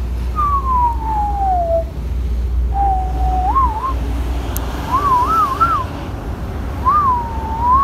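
A person whistling a loose, wandering tune. It opens with a long falling note, then runs through short wavering phrases that twist up and down, over a steady low rumble.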